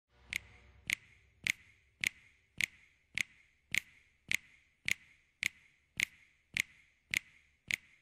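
Sharp clicks in a steady, even rhythm, about fourteen of them, a little under two a second.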